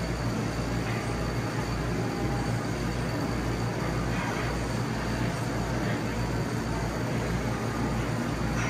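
Steady mechanical drone with a low hum that throbs about twice a second, over an even background hiss.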